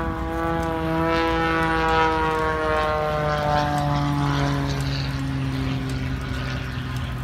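Aerobatic propeller plane's engine droning overhead, its pitch falling slowly as it passes.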